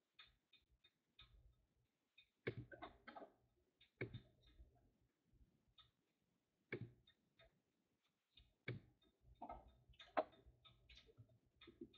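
Near silence broken by faint, irregular clicks and small knocks, with a few louder knocks scattered through, over a faint low hum.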